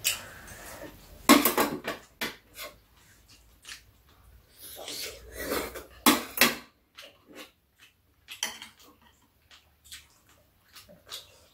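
Metal spoon and steel chopsticks clinking and scraping against bowls and a metal tray as two people eat, in a run of irregular clicks.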